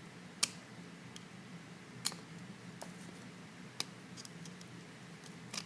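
About five sharp, scattered small clicks and taps of metal tools against a small aluminium padlock as it is handled on the bench, over a faint steady hum.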